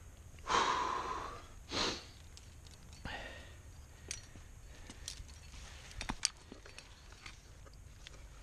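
A climber's heavy breathing: a long sigh-like exhale about half a second in, then two shorter breaths. These are followed by scattered light clicks and clinks of climbing gear as an anchor is built.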